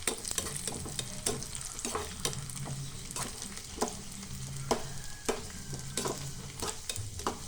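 Cashews and raisins frying in ghee in a pan, sizzling steadily while being stirred, with a sharp click of the stirring utensil against the pan about once a second.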